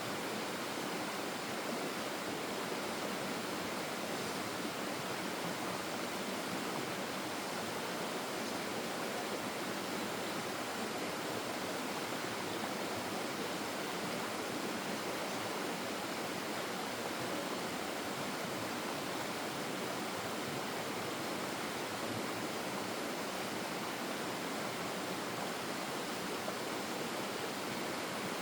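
Stream water flowing steadily, an even rushing with no distinct splashes or changes.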